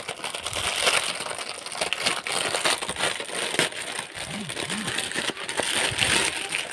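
Clear plastic polybag crinkling and rustling as a blouse is handled and pulled out of it by hand, with many small crackles.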